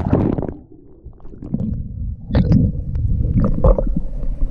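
Sea water heard through a camera dipped under the surface: the sound turns muffled and low, with dull gurgling. From about two seconds in come sloshing and splashes as the camera comes back up.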